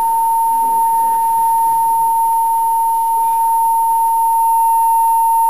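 Loud, steady single high note from a loudspeaker driven by a function generator and power amplifier, held at a glass beaker's natural frequency to set the beaker resonating. The pitch does not waver.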